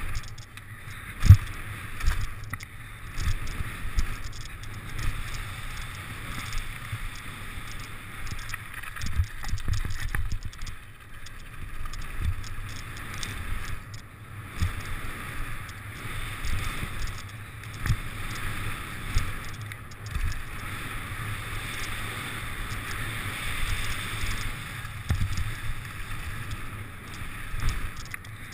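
Mountain bike riding fast down a dirt-and-gravel trail: wind rushing over the microphone and tyre rumble, with frequent knocks and rattles over bumps, the loudest about a second in.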